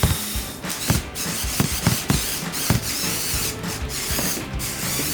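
LEGO Technic car's motor and plastic gears running, with irregular clicks and knocks from the bricks as the car works at a climbing obstacle.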